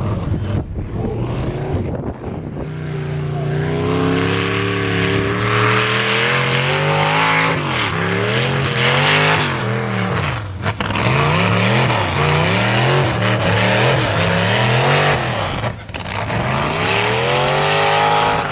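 Modified lawn tractor's engine at full throttle pulling a weight-transfer sled. Its pitch climbs over the first few seconds, then surges up and down again and again under the load, and climbs once more near the end.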